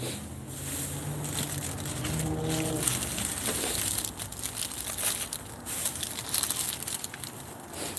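Packaging crinkling and rustling in irregular bursts as items are handled and unwrapped.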